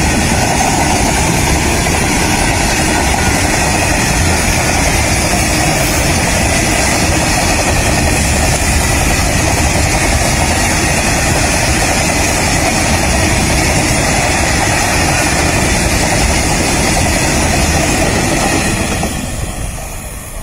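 Freight train of open-top wagons rolling past close by: steady, loud noise of steel wheels running on the rails, dying away near the end as the last wagon passes.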